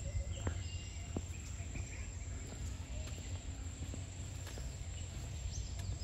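Garden ambience: a few short bird chirps and a steady high insect drone over a low rumble, with faint scattered clicks.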